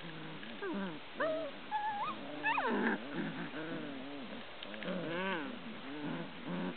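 Bouvier des Flandres puppies growling and yipping in play over a stuffed toy: high sliding whines and yips in the first few seconds, then a string of lower repeated growls.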